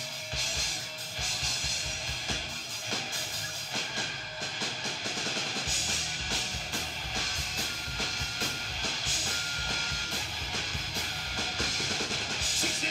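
Rock band music in an instrumental passage, the drum kit to the fore with steady kick and snare hits under electric guitars.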